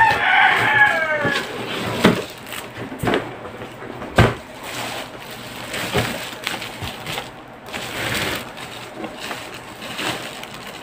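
Crinkling and rustling of a clear plastic bag as a boxed speaker is lifted out and turned over in it, with sharp crackles about two and four seconds in. At the very start, a rooster crows for about a second and a half.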